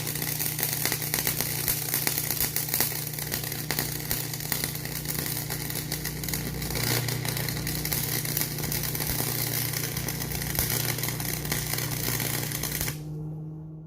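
Electric arc welding on steel: the arc crackles and sizzles steadily over a constant low hum, then stops about 13 seconds in, leaving only the hum.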